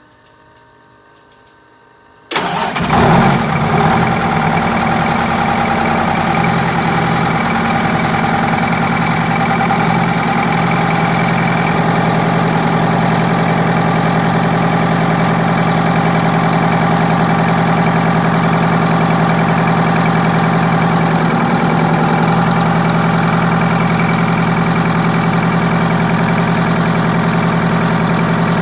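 Detroit Diesel 8V92TA two-stroke V8 diesel cranking and firing about two seconds in, flaring briefly, then settling into a steady idle. This is its first start after a bottom-end rebuild with new main and rod bearings.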